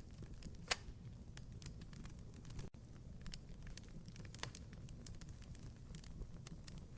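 Wood fire crackling: a steady low rumble of the burning fire with frequent small snaps and a few louder pops, the loudest about a second in. A brief dropout breaks the sound near the middle.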